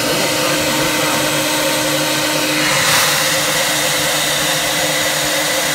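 A 1500-watt hair dryer blowing steadily to thaw an ice maker frozen up with ice. About three seconds in its sound shifts: a low hum drops out and the hiss grows brighter.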